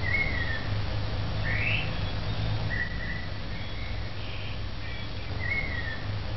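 Birds calling outdoors: short whistled calls, some level and some sweeping upward, every second or two, over a steady low hum.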